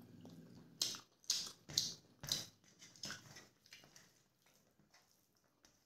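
Wet chewing and lip-smacking of someone eating rice and curry with their fingers: about five sharp smacks in the first three seconds, then quieter chewing that fades.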